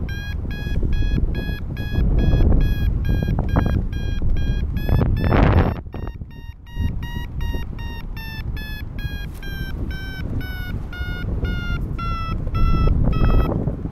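Paragliding variometer beeping in a fast, even rhythm of about three beeps a second, its pitch climbing at first and then slowly sinking toward the end. This is the climb tone, which signals that the glider is rising in lift. Wind noise on the microphone runs underneath, with a louder gust about five seconds in.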